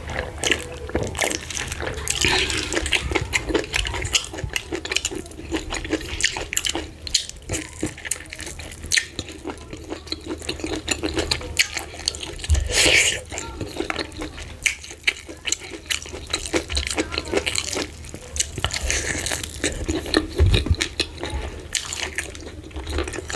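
Close-miked eating of fufu with slimy ogbono soup: wet smacking, squelching and chewing, with many small clicks of the mouth and fingers.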